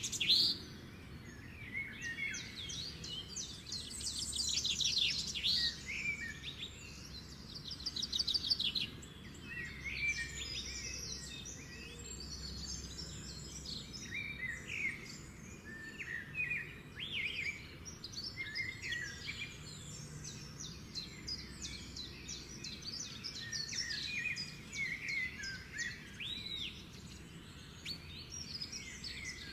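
Pet lovebirds chirping and chattering, with rapid high-pitched chirps and short buzzy trills throughout, over a steady low background hum.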